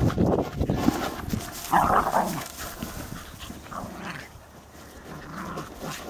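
Puli dogs playing with a rubber ball on grass: knocks and scuffles from the ball and the dogs for the first couple of seconds, then one short, loud dog vocalisation about two seconds in. After that the sounds are quieter and scattered.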